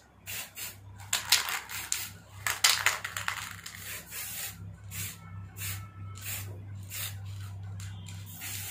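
Aerosol spray can sprayed onto the fan blades in a string of short hissing bursts, with a low steady hum underneath.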